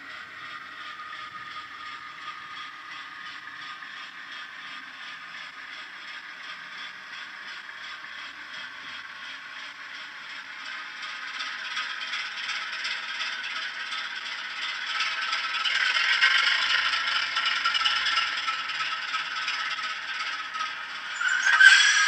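Hornby HM7000 Class 08 diesel shunter sound played through a model locomotive's small speaker: the English Electric diesel engine chugging as the model runs, getting louder through the middle as it comes closer, with a short loud sound near the end.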